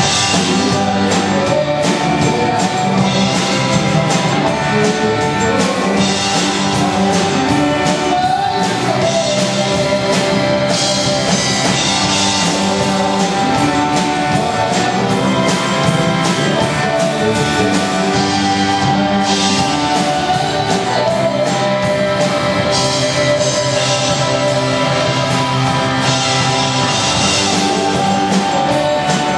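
Rock music with guitar and drums, steady and loud.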